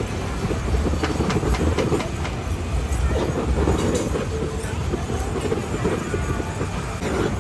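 Handheld butane canister torch burning steadily as it flames the cheese on baked potatoes, over a constant low background rumble, with a few light clicks a little after a second in.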